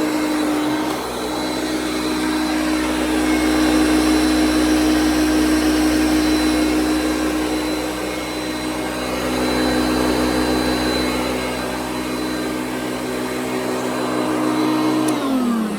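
Hoover Concept One upright vacuum cleaner running steadily at full speed, then switched off near the end, its motor whine falling in pitch as it spins down.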